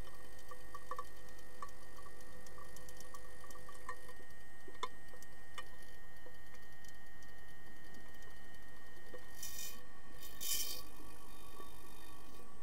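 Underwater sound in a pool during an underwater hockey game: scattered sharp clicks and ticks over a steady hum of several held tones, with two short bursts of hiss about ten seconds in.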